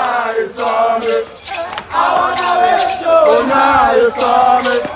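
A crowd of men chanting and singing together in a procession, with repeated sharp percussive hits.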